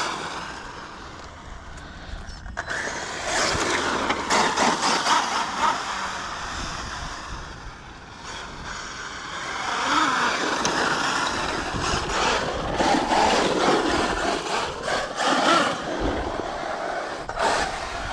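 Traxxas UDR 6S brushless electric RC truck driving on asphalt: its motor and tyres on the pavement, getting louder and quieter as it speeds up and slows while driving about.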